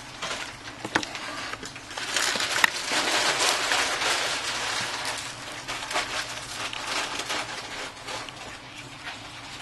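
Small clicks and scraping of hand tools and a phone being worked on a work surface during a smartphone teardown, with a longer scratchy stretch in the middle and sharp clicks about a second in and near the end.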